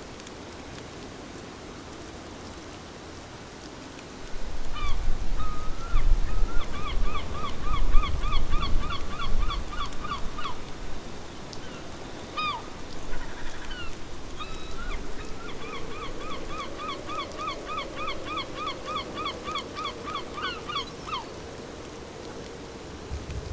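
A bird calling in two long runs of rapidly repeated rising notes, about five or six a second, over the steady hiss of rain. A low rumble sits under the first run.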